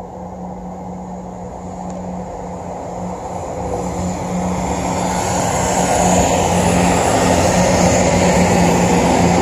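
Diesel multiple-unit passenger train approaching and passing close by: a steady low engine hum with wheel and engine noise growing louder over the first six seconds, then holding loud as the carriages go past.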